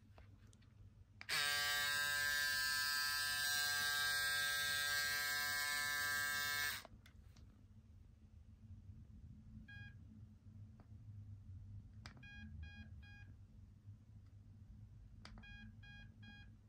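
Braun Series 7 electric foil shaver running with a steady hum for about five seconds, then switched off. Later it gives a single short electronic beep, then two quick runs of about four short beeps.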